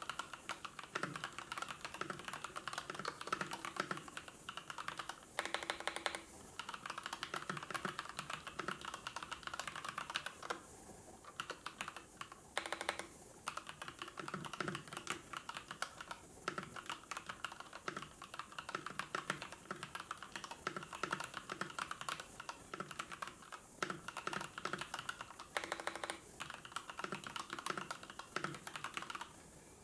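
Typing on a computer keyboard: a steady run of rapid keystrokes, with a couple of short pauses about eleven seconds in.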